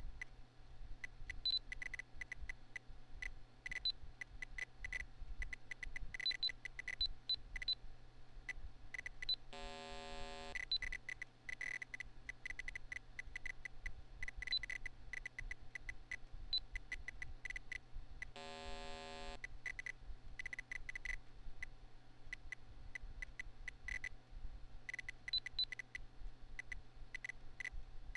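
PC internal-speaker beeps from an earthquake-mapping program: frequent short high beeps, each marking a quake of magnitude 6 or more, and twice, about 10 and 19 seconds in, a long low buzzy note of about a second that signals a magnitude 8.5+ quake. Under them runs the steady low hum of the computer's fan.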